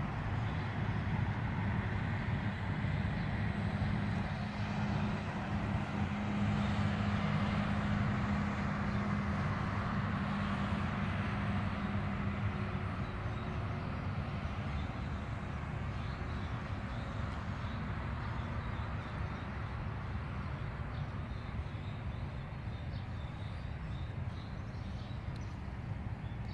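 Steady vehicle noise, a low rumble with hiss, and a steady low hum in the first half that fades out about halfway through.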